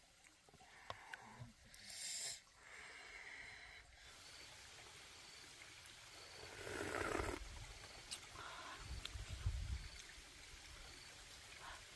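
A person slurping soup broth from a spoon: one loud slurp a little past halfway, with quieter eating sounds around it.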